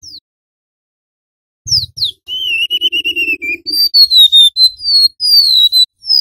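Golden-bellied gerygone (remetuk laut) singing high, thin, flute-like whistles. A brief falling note at the start is followed, after a pause of about a second and a half, by a quick run of downslurred whistles. A warbled note sits among them about two to three and a half seconds in.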